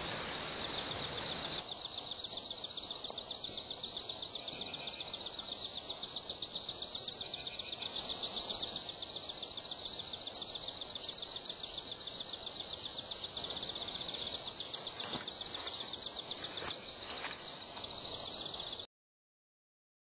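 Australian cicadas calling: a steady, high-pitched shrill drone with a fast pulse, which cuts off suddenly near the end.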